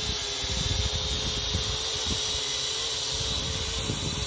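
Wind rumbling on the microphone, with a steady faint hum underneath.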